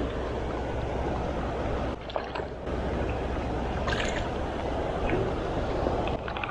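Shallow river flowing steadily over stones, with a small hooked fish splashing at the surface about four seconds in.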